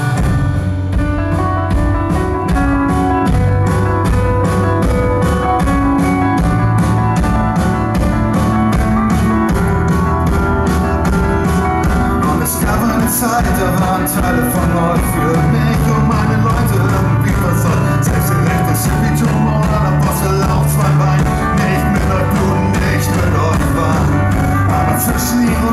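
Rock band playing live through a PA in an instrumental passage: electric guitars and electric bass, with drums keeping a steady beat.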